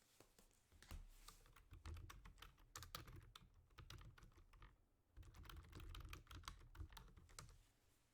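Quiet, rapid run of light clicks and taps, in two stretches with a short pause about five seconds in.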